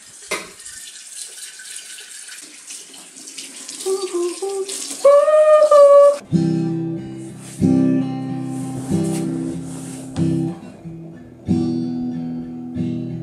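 A steady hiss with a brief held note, then from about six seconds in an acoustic guitar strummed in chords, one strum about every second and a half, each left to ring.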